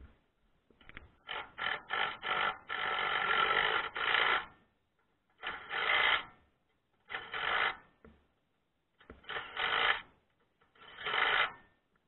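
Ratchet wrench clicking in repeated bursts while tightening bolts on a metal antenna mounting bracket: a cluster of short bursts, one longer run of about a second and a half, then four more bursts spaced one to two seconds apart.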